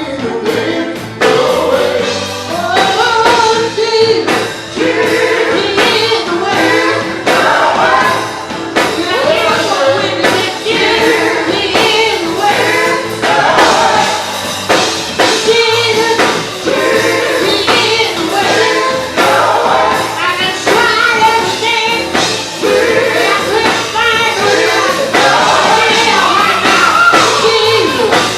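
Gospel music with a choir singing over a band with a steady beat.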